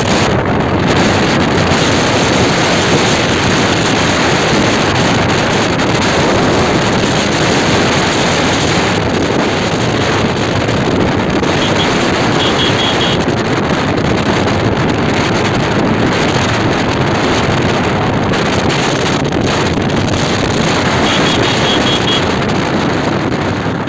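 Loud, steady wind buffeting the microphone while moving at speed along a road, mixed with vehicle travel noise.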